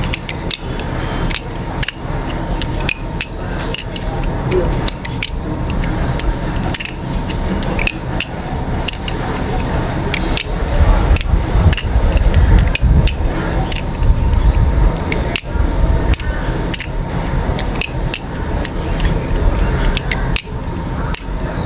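Balisong (butterfly knife) handles clicking and clacking as the knife is flipped and spun through a fan loop, sharp metallic clicks coming irregularly about two or three times a second over a steady low rumble.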